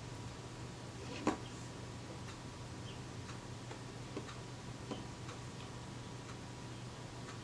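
Faint light clicks and ticks of a thin applicator stick against a glass nail-varnish bottle and the small metal rangefinder unit as lacquer is dabbed onto a screw. There is one sharper click about a second in, over a low steady hum.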